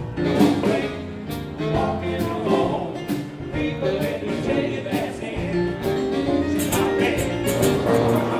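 A live traditional jazz band playing a tune with a singer, with a steady beat from drums and cymbals.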